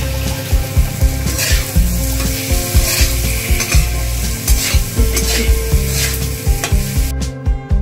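A flat metal spatula stirring and scraping spiced potato cubes around a metal kadhai while the oil sizzles. The stirring and sizzling stop about seven seconds in.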